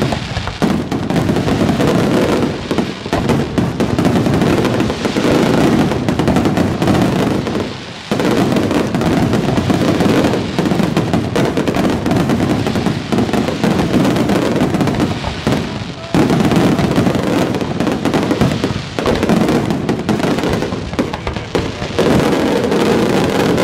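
Fireworks display: a dense, continuous barrage of shell bursts, bangs and crackling, with brief lulls about 8 and 16 seconds in.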